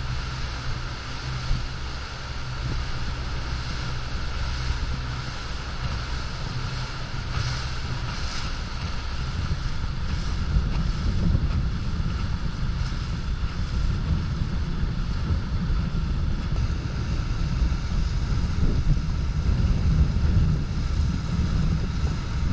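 Suzuki outboard motor running steadily as the boat moves under way, with wind buffeting the microphone and water rushing past the hull.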